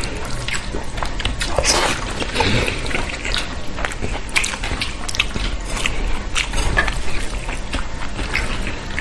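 Close-miked eating sounds: wet, sticky clicks and squelches of rice and curry being chewed, with lip smacks, coming irregularly.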